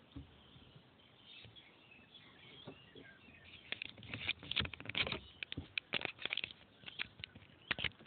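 Faint bird chirps, then from about halfway a run of irregular clicks and knocks.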